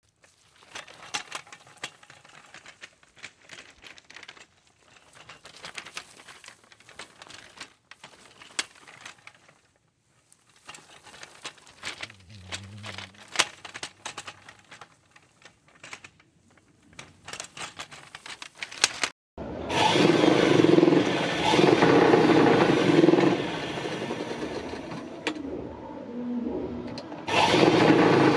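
Quiet scratching and clicking of wool being worked by hand, with wool rubbed between hand carders. About two-thirds of the way in, a sewing machine starts running loudly, eases off for a few seconds, then runs loud again.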